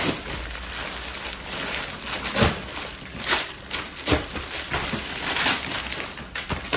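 Thin plastic packaging crinkling and rustling as a folded suit is pulled out of its clear plastic bag, with several short, louder crackles.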